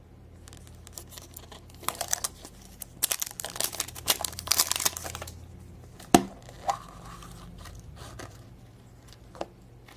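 Crinkly wrapper being torn and peeled off a plastic surprise-egg capsule, a couple of seconds of crackling, then a sharp plastic click as the capsule is snapped open, with a smaller click just after.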